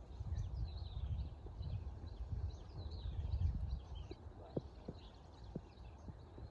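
Small birds chirping: many quick, high, falling notes repeated over a low rumble, with a few sharp knocks a little past halfway.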